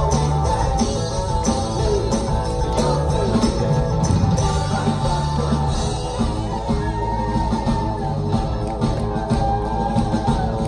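Live rock band playing at full volume: electric guitars, bass guitar and drums, with singing and a tambourine.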